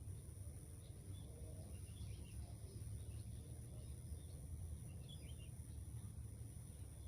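Outdoor ambience: a steady high insect drone with a few faint bird chirps about two and five seconds in, over a steady low rumble.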